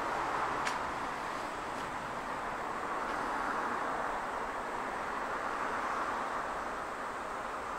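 Steady outdoor ambient noise of a railway station platform, an even hiss-like background with no distinct event apart from a faint click under a second in.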